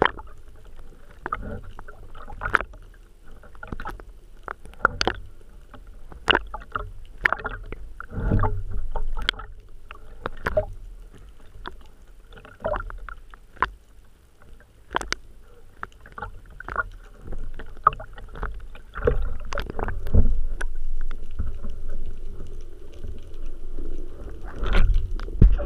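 Sea water sloshing and gurgling around an action camera mounted on a speargun at the water's surface. Many irregular sharp clicks and knocks come through as the gun and its shooting line are handled.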